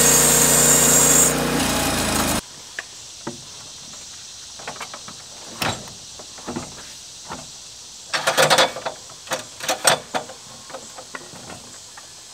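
Norwood HD36V2 portable sawmill's engine running, its high whine dropping out about a second in and the engine shutting off abruptly a second later. Then scattered knocks and clatters follow, the loudest cluster about eight to ten seconds in.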